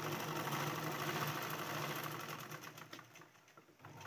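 Black sewing machine stitching a seam with a fast, even clatter. It winds down about two and a half seconds in and starts up again just before the end.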